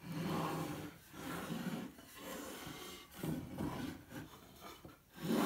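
Wooden frame boards, taped together at their corners, sliding and scraping across a tabletop as they are folded into a rectangle, in about five short scrapes.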